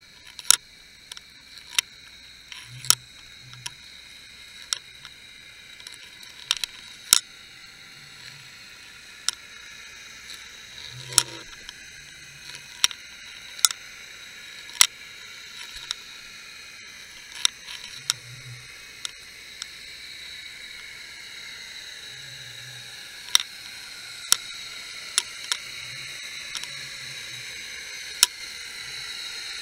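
Underwater recording from a submerged camera over a sandy bottom: a steady hiss that slowly grows louder, broken by sharp clicks at irregular spacing, roughly one every second or two, with a few soft low thumps.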